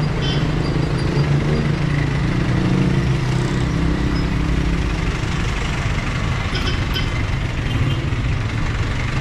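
Street traffic: jeepney, tricycle and car engines running close by, a steady low engine hum, with a few faint short high tones near the start and again about six and a half seconds in.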